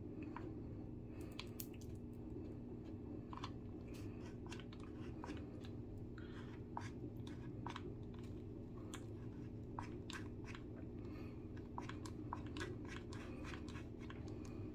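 Hot glue gun working glue into a hole in drywall: irregular small clicks and crunches, a few a second, over a steady low hum.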